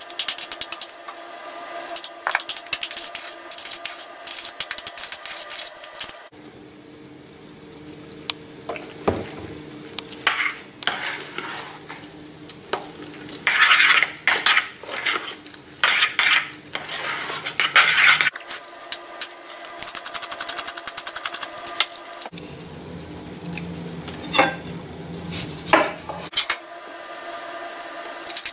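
Metal spoon stirring mashed potatoes in a stainless steel saucepan, clinking and scraping against the pot's sides and bottom in irregular bursts, with a few brief pauses.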